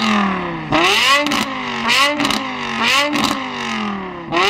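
Car engine revved repeatedly in quick throttle blips, about once a second. Each time the pitch climbs sharply and then falls away slowly.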